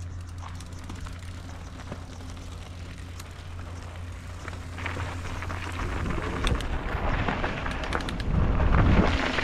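Mountain bike riding down a dirt trail: wind buffets the microphone and the tyres rumble, with scattered rattling clicks from the bike. It grows louder from about six seconds in as the speed picks up.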